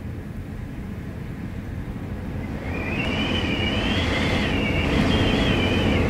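Wind howling through the gaps of a cabin door: a low rumbling gust that builds about halfway through, joined by a high whistle that wavers up and down in pitch.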